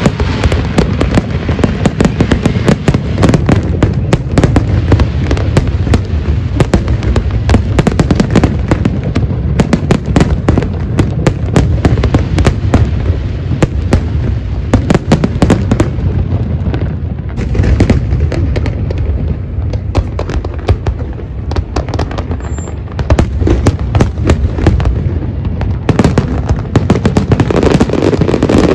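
Large fireworks display: a dense barrage of bangs and crackles, many bursts a second over a heavy low rumble, easing a little partway through before building again.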